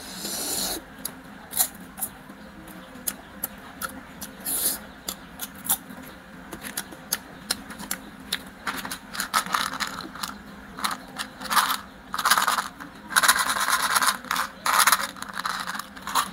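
Candy packaging being handled: crinkling plastic and foil wrappers and sharp clicks of hard plastic candy cases. The crinkling is heaviest in the second half.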